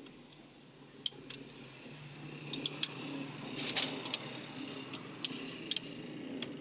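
Scattered light clicks and taps of hand tools on metal over a steady low hum, with a short hiss about three and a half seconds in.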